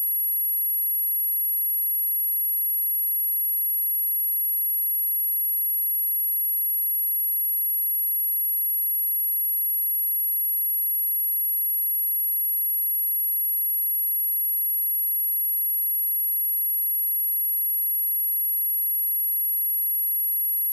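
A steady, very high-pitched pure test tone: a single 11424 Hz sine wave held at constant level, used to test speakers and shake water and dust out of them.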